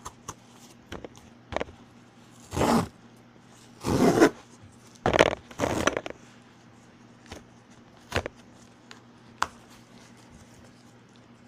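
Cardboard mailer box being opened by hand: three short ripping tears a few seconds in as its tear strip is pulled open, the middle one loudest, with scattered light taps and scrapes of cardboard handling.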